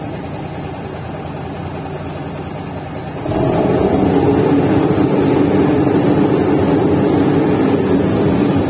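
Shacman tractor head's diesel engine idling, then about three seconds in it is revved up with the accelerator pedal and held at a raised speed of around 1,800 rpm, easing off right at the end. The rev-up shows the pedal, which has a fault that makes it cut out, responding under test.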